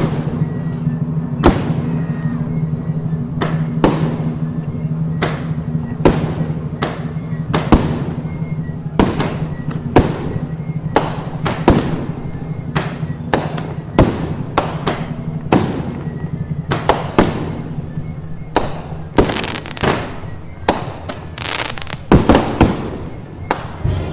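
Firecrackers going off again and again at an irregular pace, sharp cracks coming closer together and louder near the end, over music with a steady low held note.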